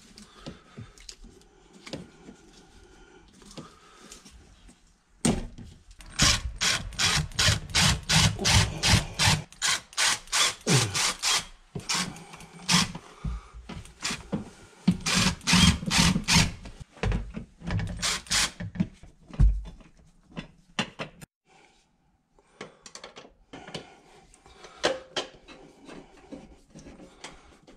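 Cordless drill driving screws in a long run of short, evenly repeated pulses, about three a second, over a low motor hum. Fainter clicks and scraping follow near the end as screws are turned by hand.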